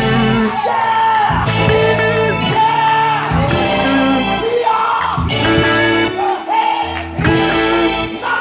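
A voice singing in drawn-out phrases that rise and fall, over sustained keyboard chords.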